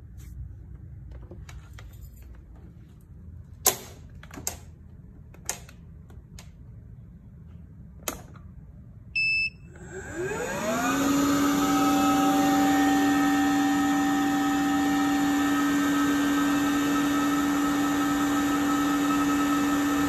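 Liectroux window-cleaning robot: a few sharp handling knocks, then a short beep about nine seconds in. Its suction fan starts about ten seconds in with a rising whine and settles into a steady hum as it holds itself onto the surface.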